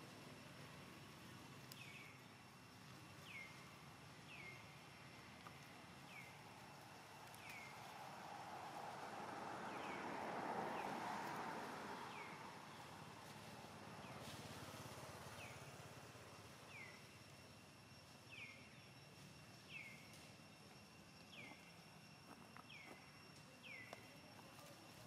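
Faint outdoor ambience in which an animal repeats a short, high call that falls in pitch, about once every second or so. A broad rushing noise swells and fades about halfway through.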